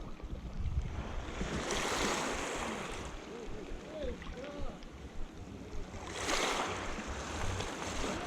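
Sea waves breaking and washing up the shore twice, each one a swelling rush of surf, over a steady low rumble of wind on the microphone.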